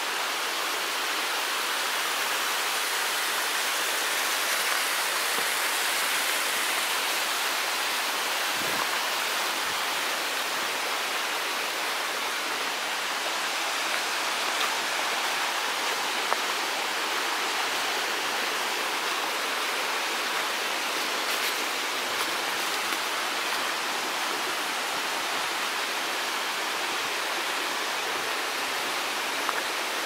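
Steady rush of water from a mountain stream, with a few faint ticks over it.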